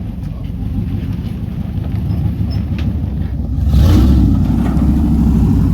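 Off-road truck engine running, then getting louder about three and a half seconds in as it is given throttle.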